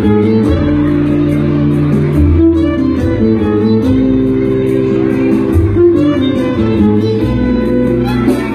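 Instrumental music: plucked guitar accompaniment over a steady bass line.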